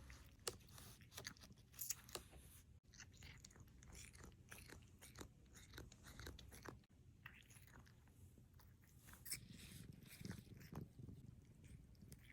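A cat chewing and smacking its mouth as if eating, with nothing in it: faint, irregular clicks and smacks, a few of them sharper.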